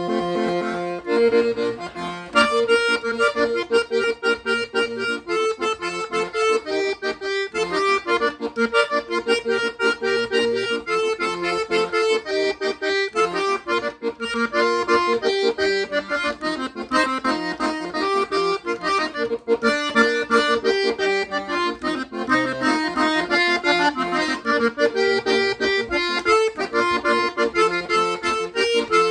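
Corona III Rey Vallenato diatonic button accordion, harmonized and in the '5 letras' key, playing a continuous tune, with the melody on the treble buttons over the bass buttons, in a bright, clear tone.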